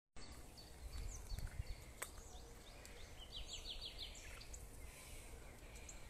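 Wild songbirds singing faintly in the forest: scattered high chirps and, about halfway through, a quick run of five or six falling notes, over a low rumble.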